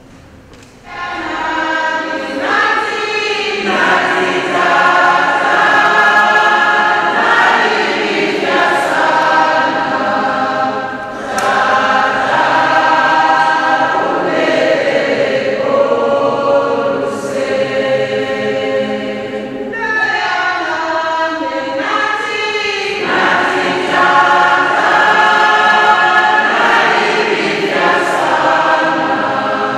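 Many voices singing a hymn together, starting about a second in and carrying on in long sung phrases with brief pauses between lines.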